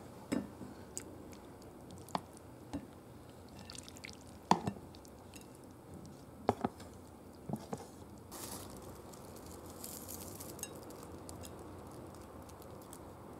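Wooden chopsticks and a plastic food container clicking and tapping against a ceramic dish as saucy pork and onions are pushed out, with soft wet squishing of the food. The taps are light and scattered, the sharpest about four and a half and six and a half seconds in.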